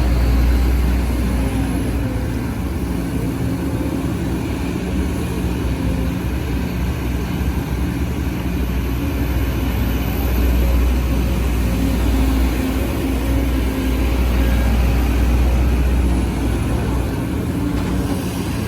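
Sumitomo SH210F hydraulic excavator's diesel engine running under working load, a steady heavy drone that swells slightly a few times as the machine digs.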